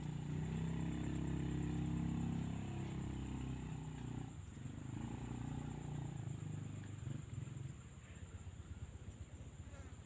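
Buttonquail giving a low, rolling booming call in two long phrases, the first breaking off about four seconds in and the second ending near eight seconds, as wild and caged birds face off at the trap. A steady high insect whine runs beneath.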